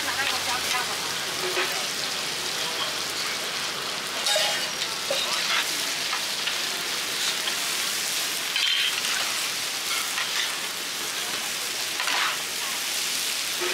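Large batch of egg fried rice frying in an oversized wok, a steady sizzling hiss as it is turned with a flat metal spatula. The spatula scrapes and clinks against the wok now and then.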